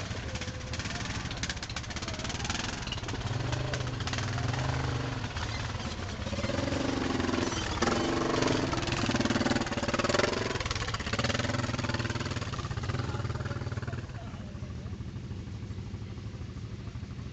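Quad bike (ATV) engines running on a rough lane. In the middle one revs up as it rides close past, loudest for about five seconds, then falls back to a lower, steady running sound.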